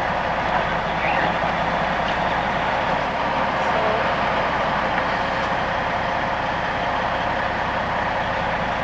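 Dump truck's diesel engine running steadily, heard from inside the cab with the window down.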